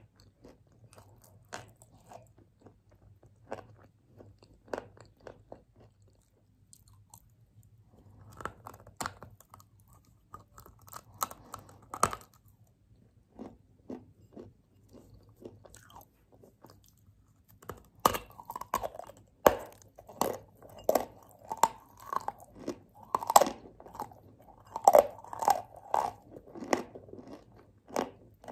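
Close-up crunching and chewing of white Turkestan chalk coated in wet Ural clay paste: sharp crunches of bites and chewing. They are sparse at first and come thicker and louder about two-thirds of the way in.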